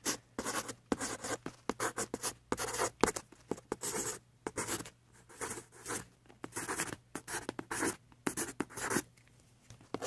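Thick black permanent marker drawn across paper in many short strokes with brief pauses, a dry scratching rub, over a faint steady low hum.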